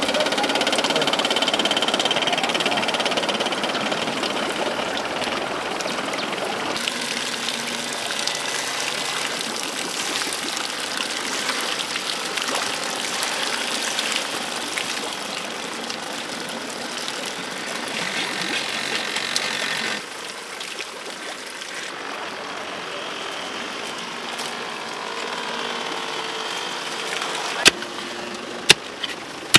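Steady rush of stream water around a turning bamboo water wheel. Near the end come a few sharp strikes of a hoe blade chopping into soil.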